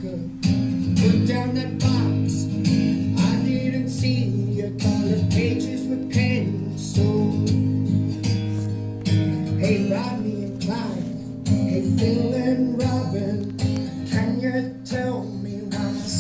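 Young man singing his original song live, to a strummed acoustic guitar.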